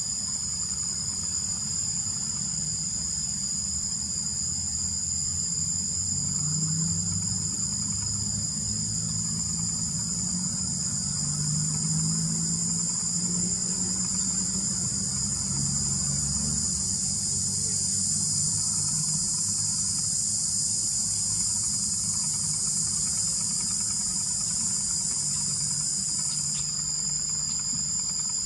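Steady outdoor chorus of insects trilling, several continuous high-pitched tones layered together, one layer stopping near the end, over a faint low rumble.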